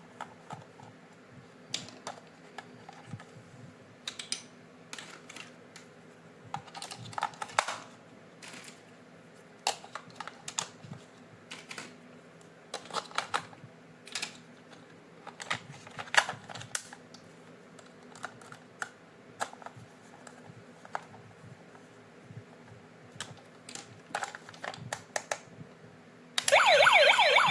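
Irregular clicks, taps and rustles of a toy and its plastic and cardboard packaging being handled. About a second before the end an electronic toy siren with a jingle starts suddenly and loudly, its pitch sweeping up and down.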